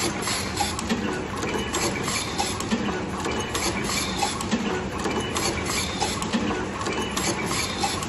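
Automatic double-wire cut, strip and crimp machine running, its crimping presses and wire grippers clacking in a steady run of quick clicks and knocks.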